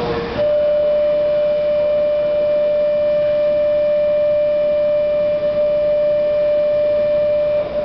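Station platform departure signal: one loud, steady electronic tone that switches on sharply about half a second in and cuts off just before the end, held for about seven seconds.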